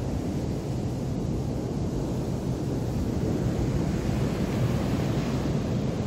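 Surf breaking along a sandy beach, mixed with wind buffeting the microphone in a steady low rumble.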